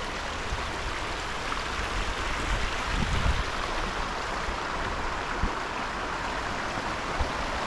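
Creek water rushing steadily, with a few short low thumps about three and five seconds in.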